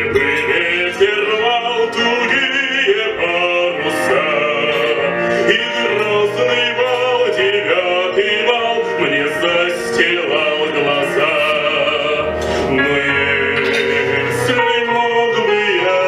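A male classically trained voice sings with wide vibrato over instrumental accompaniment, in the full operatic style of academic vocal.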